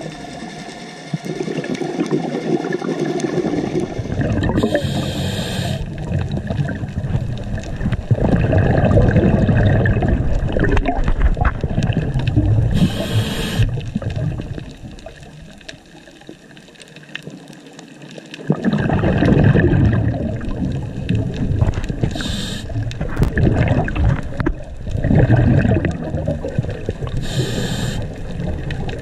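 Scuba diver breathing through a regulator, heard underwater: four short hissing inhales, with long stretches of rumbling, gurgling exhaust bubbles in between and a couple of quieter pauses.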